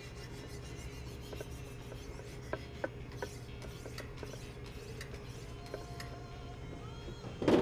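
Wicked Edge sharpener's stones stroked along a kitchen knife blade, a scraping rasp with scattered light clicks. A loud knock comes near the end.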